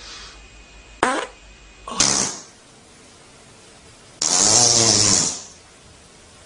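Three farts: a short one about a second in, another about two seconds in, then a longer one lasting about a second with a wavering pitch.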